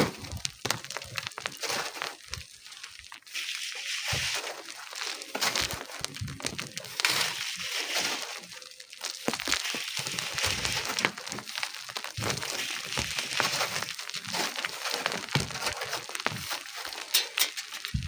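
Sand and gravel being dug and shifted, giving irregular scraping and crunching with many small clicks and knocks of stones.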